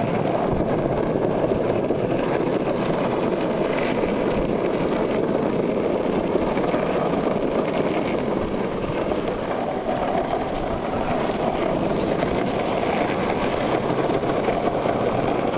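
Longboard urethane wheels rolling over rough asphalt: a steady, even rumble throughout.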